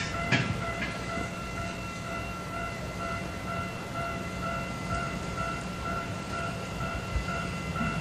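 Steam locomotive standing in a station yard: a steady hiss with a high whine that pulses about twice a second, and a couple of sharp knocks in the first second.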